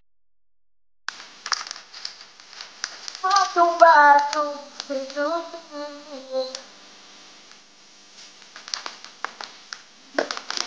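Crinkling and clicking of a plastic water bottle being handled. In the middle, a voice sings wordlessly for about three seconds. The sound cuts in after about a second of dead silence.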